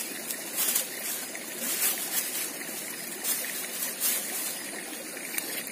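Small muddy stream running with a steady trickle, with a few faint knocks.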